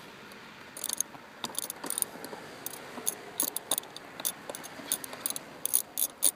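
A 10 mm socket ratchet clicking as its handle is swung back and forth to loosen a seat bolt. The clicks come in short scattered runs, then quicker and louder near the end.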